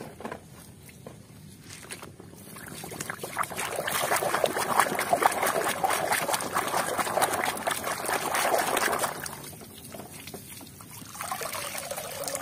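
A few faint clicks of plastic toys being handled, then a hand swishing and scrubbing a plastic toy car in a basin of muddy water, splashing and sloshing for several seconds. Near the end, water trickles and drips off the toy back into the basin as it is lifted out.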